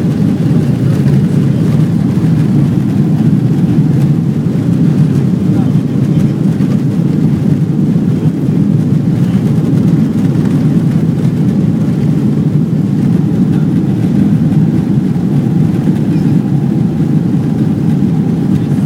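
Cabin noise aboard a Boeing 777-300ER during its takeoff roll: the GE90 engines at takeoff thrust and the aircraft rolling down the runway, a loud, steady, deep noise that does not change.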